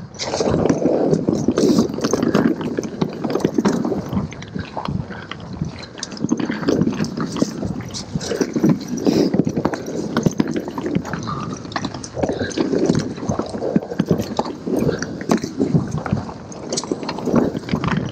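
Mountain bike riding down a rough dirt trail: tyres rolling and crunching over dirt, and the bike rattling with a steady stream of clicks and knocks over the bumps.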